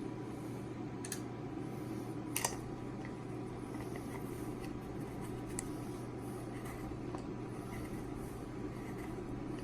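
A few light clicks and taps of an RC truck wheel and its hub nut being handled and fitted, the sharpest about two and a half seconds in, over a steady low room hum.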